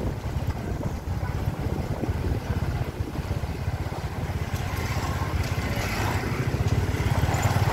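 Small motorbike engine running steadily while riding along, with some wind noise on the microphone; it grows louder near the end.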